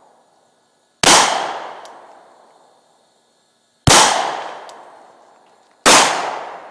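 Three pistol shots fired at a slow, uneven pace: one about a second in, one near four seconds and one near six seconds. Each is a sharp crack that echoes away over a second or so.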